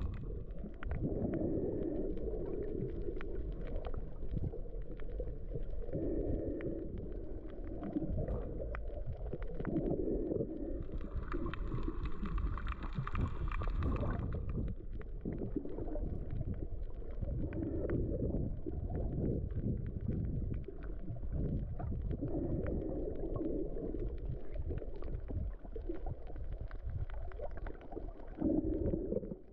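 Muffled underwater rumble and sloshing of water moving past a camera held under the surface, with uneven surges. A higher, brighter whine rises over it for about three seconds near the middle.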